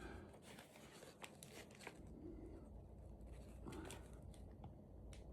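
Faint crinkling and tearing of a trading-card pack's plastic wrapper as it is worked open, with scattered small clicks.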